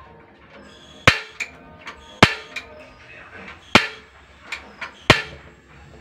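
Gas stove burner's spark igniter clicking four times, one to one and a half seconds apart, each sharp snap followed by a fainter click, as it tries to light the burner: a hard start. The burner catches by the end.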